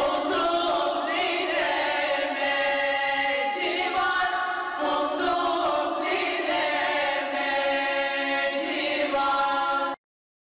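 Women's choir singing a folk song in held, layered notes; the singing cuts off suddenly near the end.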